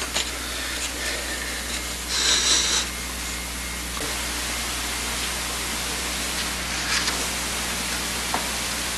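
Steady hiss of analog videotape noise, with a brief crinkling rustle of a paper sheet being handled about two seconds in and a shorter, fainter one near seven seconds.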